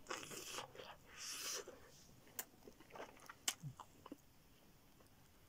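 A man chewing a mouthful of pepperoni pizza, with soft chewing noises at first and then a string of short, sharp mouth clicks and smacks that die away in the last second.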